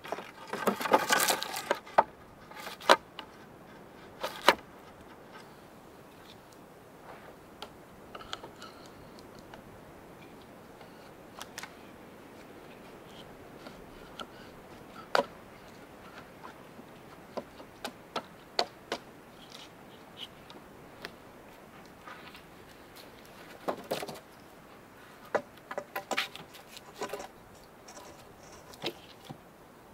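Scattered sharp knocks and clatters of things being handled, with a short ringing clatter about a second in and a cluster of knocks near the end, over a quiet background.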